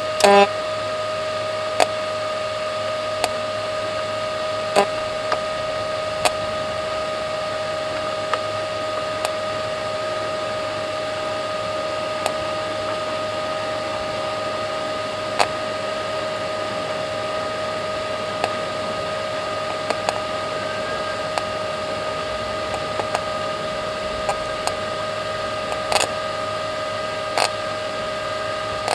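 Microwave oven running with a steady hum, a metal tin of ravioli inside. Sharp snaps at irregular intervals, a second or several apart, from the tin sparking inside the oven.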